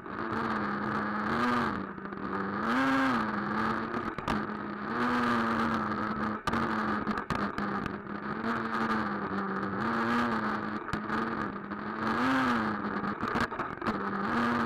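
Traxxas Nitro Rustler's small two-stroke nitro engine running, heard from a camera mounted on the truck, with a steady note whose pitch rises briefly several times as the throttle is opened. Short clattering knocks from the chassis bouncing over the rough ground run through it.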